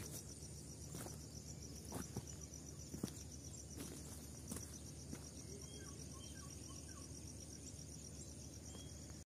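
Faint, steady chorus of insects trilling in a high, evenly pulsing band, with a few soft clicks in the first few seconds.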